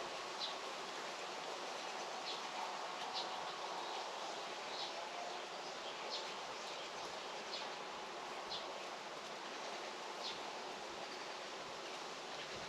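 Rural outdoor ambience: a steady hiss with a bird repeating a short, high chirp about once a second, and a faint, lower wavering call in the first few seconds.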